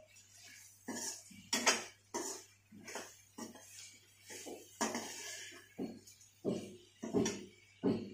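Perforated steel ladle stirring and scraping a vegetable mix in a black kadhai, knocking against the pan about twice a second in an uneven rhythm.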